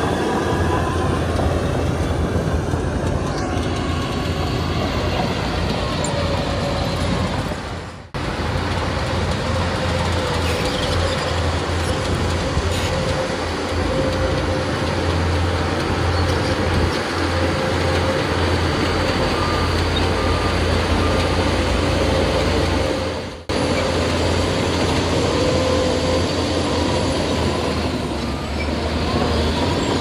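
Bulldozer diesel engine running steadily under load, with metallic squealing and clanking from its steel crawler tracks. The sound cuts out briefly twice.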